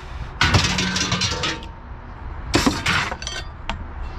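Small pieces of scrap metal clattering and clinking as they are dropped in a pile, in two bursts about a second apart, with a few single clinks between.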